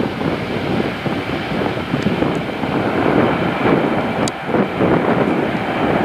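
Airbus A321neo's Pratt & Whitney PW1100G geared turbofan engines at takeoff power as the airliner climbs away, a loud steady rumble with a faint high whine over it.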